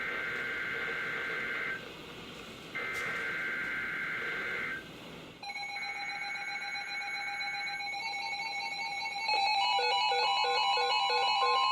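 NOAA Weather Radio SAME alert header: three warbling digital data bursts of about two seconds each, a second apart. Partway through, several weather radios begin to sound, first with steady alert tones and then, about nine seconds in, with louder overlapping beeping alarms, announcing the incoming severe thunderstorm warning.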